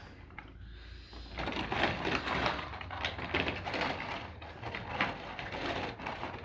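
Plastic toy packaging rustling and crinkling as it is handled and opened, starting about a second and a half in as a dense run of small crackles.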